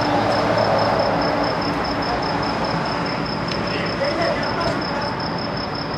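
Football players calling out over a steady hiss, with a cricket chirping in a high, even pulse of about five chirps a second.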